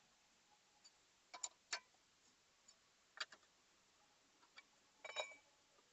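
Scattered metallic clicks and clinks as the wheel nuts of a jacked-up car are unscrewed with a wheel brace, about five in all at uneven intervals, the last one ringing briefly.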